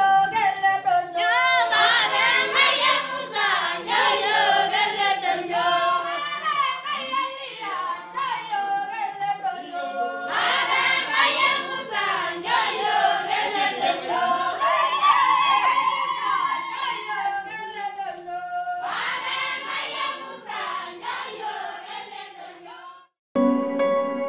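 A group of women singing together without instruments, several voices wavering up and down in a communal song. The singing fades out about 23 seconds in and gives way to soft instrumental music near the end.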